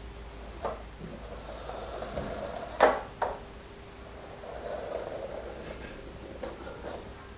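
Small toy BB-8 droid's drive motor whirring softly in spells as it rolls about on a hardwood floor, with a few sharp knocks, the loudest about three seconds in.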